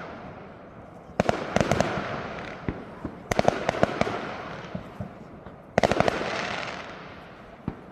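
Aerial fireworks bursting: three salvos about two seconds apart, each a cluster of sharp bangs trailing into a crackle that dies away.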